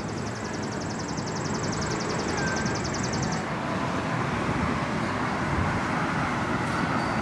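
Steady rushing outdoor background noise that grows slightly louder, with a fast, even, high-pitched ticking trill that stops a little over three seconds in.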